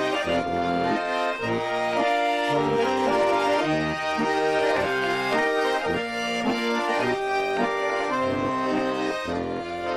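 Russian garmon (button accordion) playing a traditional folk dance tune, melody over sustained chords.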